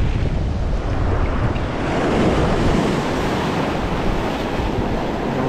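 Surf washing over a shoreline rock shelf, the foaming water rushing close by. A wave surges in about two seconds in. Wind buffets the microphone, mostly in the first seconds.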